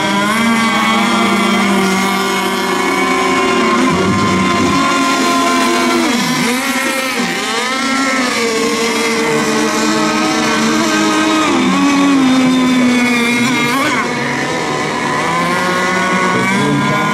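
Several radio-controlled racing boats running together on the water, their engine pitches overlapping and rising and falling as they race.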